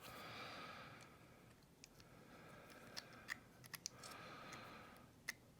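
Faint handling of small metal lock parts: light scraping with a few sharp, scattered clicks as a retaining pin is worked off a padlock core.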